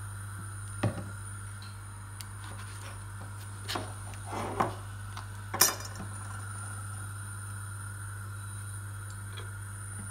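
A few short knocks and clinks of kitchen utensils being handled, a knife and butter on a worktop and a pan, the loudest a little past halfway, over a steady low hum.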